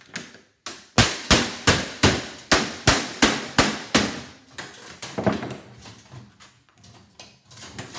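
Hammer banging on the thin sheet-metal shell of an electric baseboard heater to knock the pinched casing open: about ten sharp metallic blows, roughly three a second, each ringing briefly. A few lighter knocks and rattles follow near the end as the loosened shell is moved.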